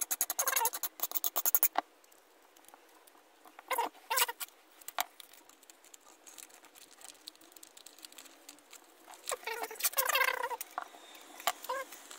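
Hand file rasping on a small metal part of an old hand drill in quick strokes for about two seconds, followed by scattered short squeaky scrapes as the part is handled and worked.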